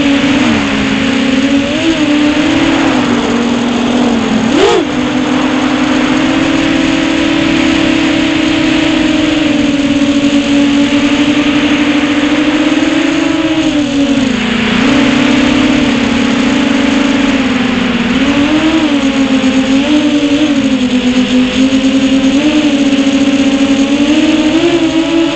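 Brushless motors and propellers of a 6-inch FPV quadcopter (2407 1850KV motors on 6S) whining steadily over a hiss of prop wash and wind, heard from the onboard camera. The pitch wavers up and down with throttle, with a sharp drop and climb about five seconds in.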